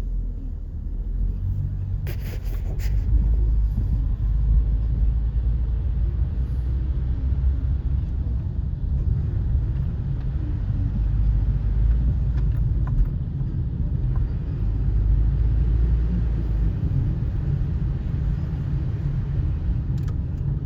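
Steady low rumble of a car driving, heard from inside the cabin, its tyres running on a slushy road. A brief rustle about two seconds in.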